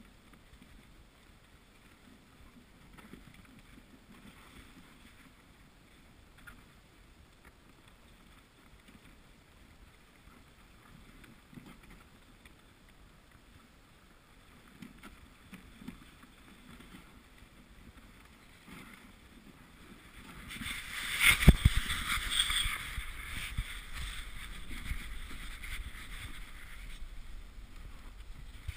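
A dog sled gliding over packed snow, its runners hissing faintly; about 20 seconds in the runners start scraping loudly and roughly, with a sharp knock just after, as the sled rides over rougher snow.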